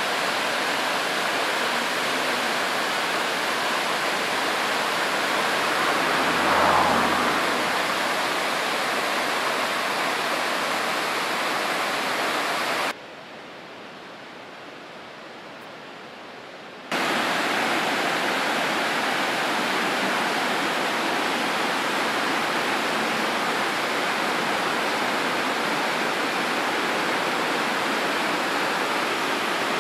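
Fast, muddy river rushing over rocks in whitewater, a steady noise of water. It turns much quieter for about four seconds near the middle, and a low hum swells and fades about six to seven seconds in.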